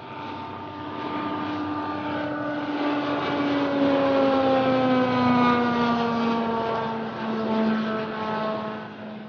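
Sikorsky X2 compound helicopter, with coaxial rotors and a pusher propeller, flying past. Its steady engine and propeller drone grows louder to a peak about halfway through, then slowly drops in pitch as it passes and moves away.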